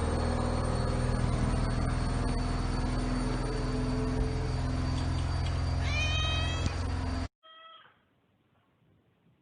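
Domestic cat miaowing: one rising miaow about six seconds in over a loud steady low hum, which stops abruptly about a second later. A second, quieter miaow follows just after.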